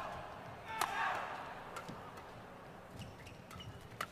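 Badminton rackets striking the shuttlecock in a fast doubles rally: a string of sharp cracks about a second apart, the loudest about a second in, with short squeaks from shoes on the court.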